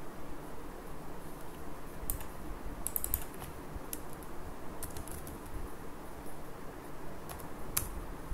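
Computer keyboard keys tapped in a few short scattered clusters of clicks, over a steady faint background hiss.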